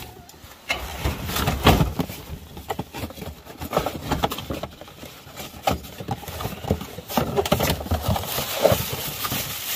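Items being handled and moved around in a box: irregular knocks, clicks, scrapes and rustles.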